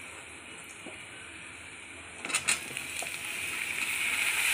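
Hot oil in a wok sizzling faintly under fried onions. A few knocks of a metal spatula come about two seconds in, and then sliced mushrooms go into the pan and the sizzle builds steadily louder.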